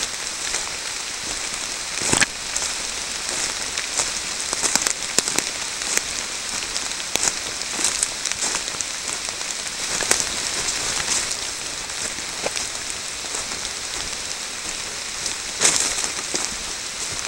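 Steady moderate rain falling through the forest, a constant hiss with many scattered sharp ticks of drops. Two louder clicks stand out, about two seconds in and near the end.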